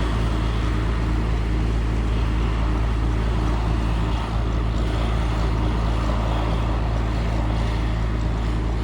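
A vehicle engine running steadily at idle, with an even low hum.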